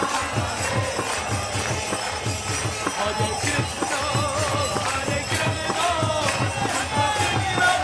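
Devotional kirtan music: a mridanga drum beaten in fast, even strokes, small hand cymbals ringing on the beat, and a harmonium, with a lead voice singing long, gliding notes into a microphone.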